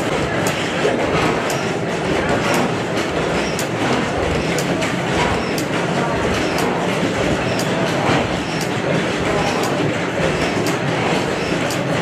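Otto 15 hp horizontal single-cylinder gas engine running, its flywheels turning, with a steady mechanical clatter and regular sharp clicks.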